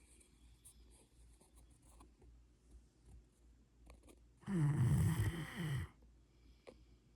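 Rottweiler snoring in its sleep: one long, low, rough snore starting about halfway through, after a quiet stretch between breaths.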